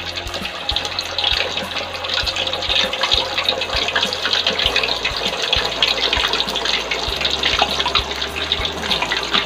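Cilor skewers (tapioca-dough balls) sizzling in hot cooking oil in an aluminium wok. The steady hiss of bubbling oil gets busier after about a second, as more skewers go in.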